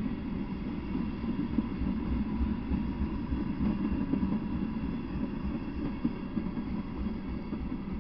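Freight train rolling past: a steady low rumble of steel wheels on rail under tank cars and an open freight car, easing off over the last couple of seconds as the end of the train passes.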